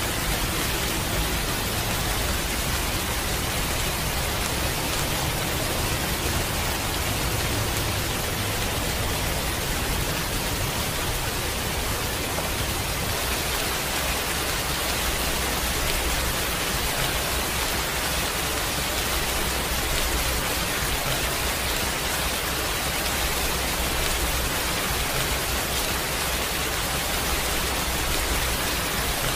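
Heavy rain falling steadily: an even, unbroken hiss with a low rumble underneath.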